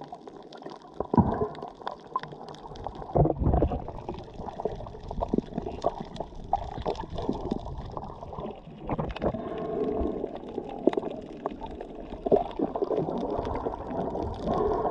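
Muffled underwater sound picked up by a submerged camera: water sloshing and gurgling around the camera, with many scattered small clicks and a few louder dull thumps, the strongest about one and three seconds in.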